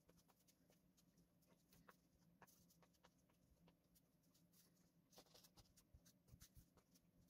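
Near silence, with faint scattered ticks and light rustles of handling, a little busier between about five and six and a half seconds in.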